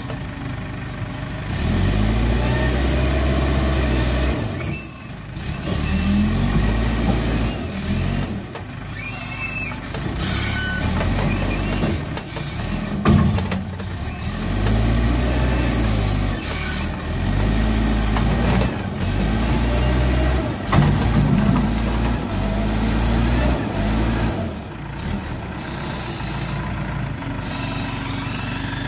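Heavy diesel engine of the working machinery, its pitch rising and falling again and again as it is revved under load, with a couple of sharp knocks along the way.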